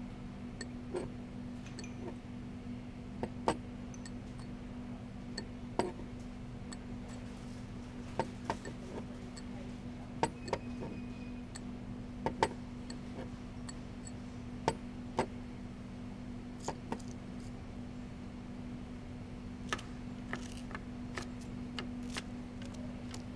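Small glass bowls set down one after another on a table, giving light irregular clinks and taps, over a steady low hum.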